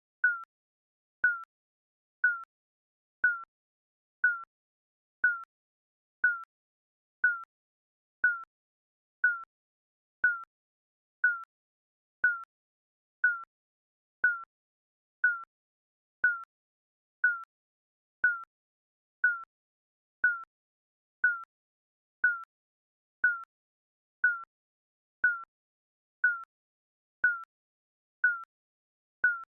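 Countdown timer's short electronic beep, sounding once every second in a steady rhythm, each beep a single high tone that dips slightly in pitch.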